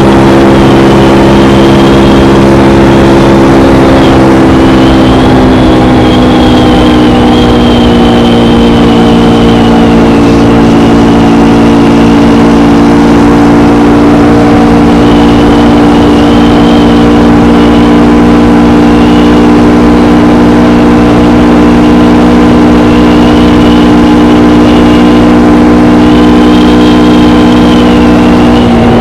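KTM Gen 3 Duke's single-cylinder engine through its stock exhaust, running at steady cruising revs. The pitch eases down slightly about five seconds in, holds, then drops near the end as the throttle comes off.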